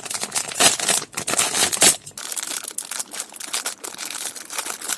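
Thin plastic bag crinkling and rustling in irregular crackles as a plastic model-kit runner is handled in it, with louder rustles about half a second and two seconds in.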